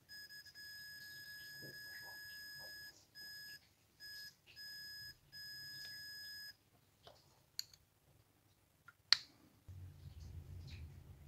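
Electronic beeper sounding one steady high tone for about three seconds, then four shorter, irregular beeps, followed by two sharp clicks.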